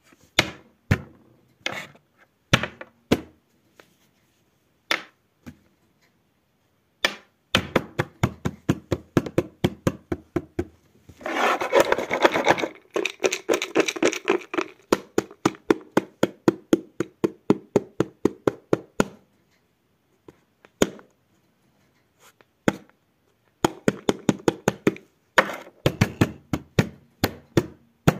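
Sharp taps and clicks, scattered at first and then in quick runs of several a second, with a denser, louder stretch of rapid tapping about twelve seconds in.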